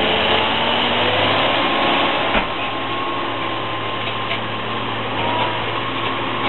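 Logging truck's engine running steadily under load with a whine over a low hum, and one sharp knock about two and a half seconds in.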